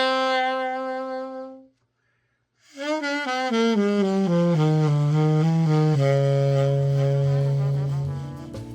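Saxophone playing a melody. A held note stops about a second and a half in, and after a short silence a falling run of notes settles on a long low note.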